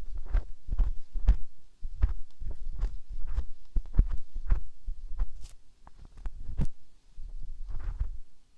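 Close-up ASMR handling sounds right at an ear microphone: irregular soft, deep thumps with crackles, a few a second, with a short lull about seven seconds in.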